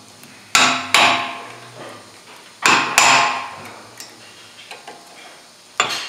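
Hammer striking a hand impact driver to snug down the brake rotor's Phillips retaining screw: five sharp metallic blows, mostly in pairs, each ringing briefly and fading.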